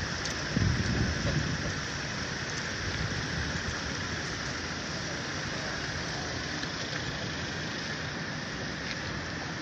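Steady street noise: a low rumble of vehicle engines with a constant hiss over it, a little louder in the first second or two.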